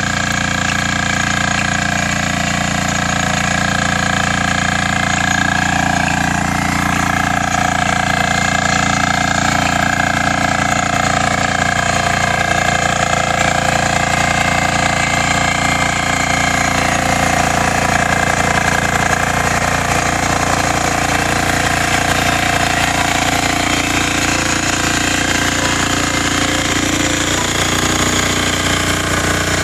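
Engine of a Yağmur 320 walk-behind power tiller running steadily under load while it pulls a corn seeder.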